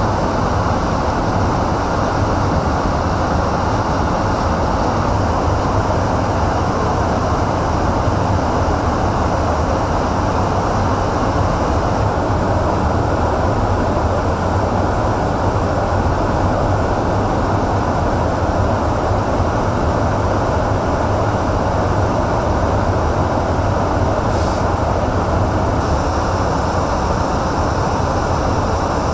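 Steady, loud in-flight rumble and rushing air inside a refuelling tanker aircraft, heard from the boom operator's station during air-to-air refuelling.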